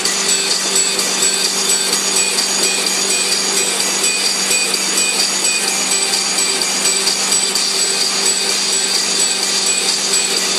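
Background music with a steady low hum and a repeating pattern of short high notes.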